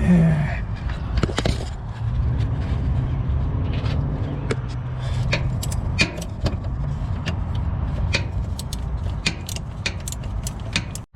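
Scattered metallic clicks and clinks of a hand socket wrench working a 19 mm bolt on a semi truck's starter mounting, over a steady low rumble.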